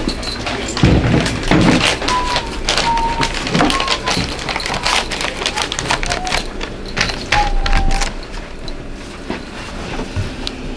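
Clattering and knocking of items being handled and set down on worktables, with a few dull thuds about a second in and several short squeaks during the first eight seconds.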